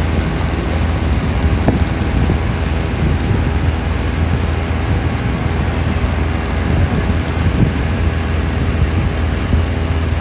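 An engine running steadily at an even speed, its low hum constant throughout, with a steady rushing noise over it.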